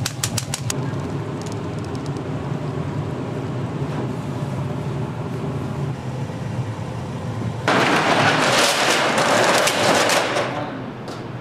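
Ramen kitchen sounds: a quick run of metal knocks as a noodle strainer is shaken dry over the boiler, then a steady low rumble. A loud rushing hiss cuts in about eight seconds in and lasts some two seconds.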